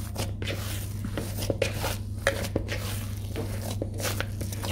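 Risen yeast dough being kneaded again by hand in a plastic bowl: a run of soft, irregular squeezes and slaps.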